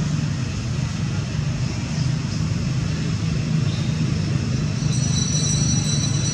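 Steady low rumble of background noise, with a few thin high steady tones joining about five seconds in.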